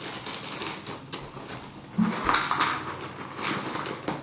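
Crinkling and rustling of a Cheez-It cracker box and its plastic liner being handled, with crackers shaken out into a plastic bowl. There is a soft thump about two seconds in, and the crinkling is loudest just after it.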